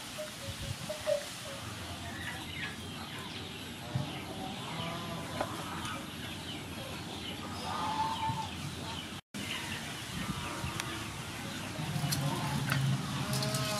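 Chickens clucking and other birds calling now and then over a steady outdoor background, with a low hum coming up near the end.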